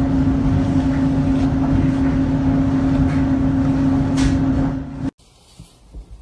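Loud, steady machine hum on one strong pitch, which cuts off suddenly about five seconds in.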